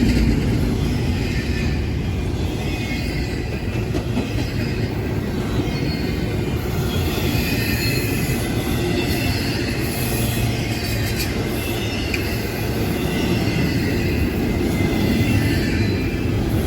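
Long intermodal freight train rolling past at close range: a steady rumble and rattle of the cars on the rails, with faint wheel squeal through the middle.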